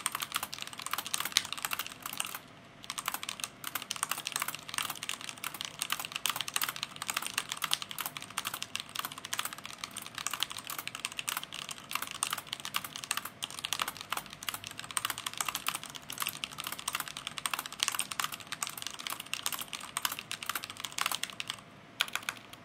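Fast typing on a Leopold FC750R mechanical keyboard: a rapid, continuous clatter of keystrokes, with a brief pause about two and a half seconds in.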